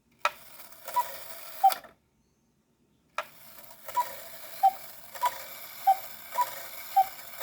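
Cuckoo clock striking: its two bellows-fed pipes sound the cuckoo call, a higher note then a lower one. The movement's strike train whirs and clicks under the calls. There is one call, a pause of about a second, then three more calls, with a fourth beginning at the end.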